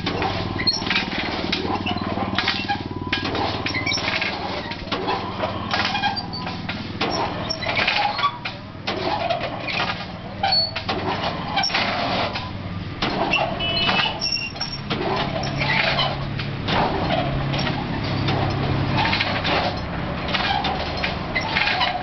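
Crimped wire mesh machine running: a steady motor hum under rapid, irregular clattering and clicking of metal.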